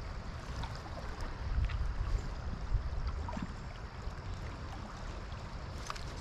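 River current running over a shallow rocky run, a steady rush of water with a low, uneven rumble underneath.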